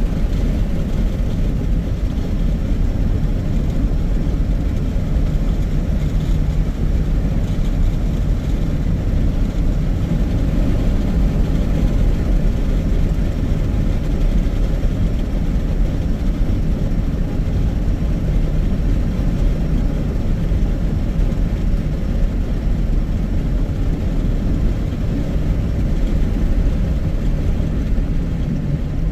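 Steady low rumble of a car on the move: engine and road noise, even throughout.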